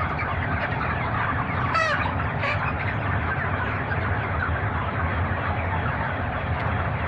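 A large flock of chickens in a shed keeping up a constant din of overlapping clucks and chirps, with one louder rising call about two seconds in, over the steady hum of the shed's fans.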